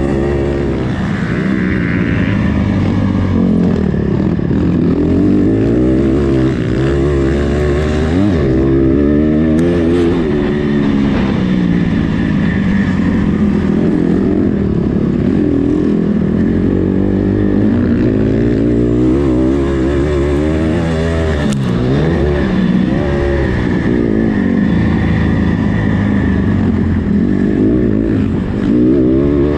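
An 85cc-class motocross bike's engine, heard up close from a camera on the bike, revving up and dropping off again and again as the rider accelerates, shifts and backs off.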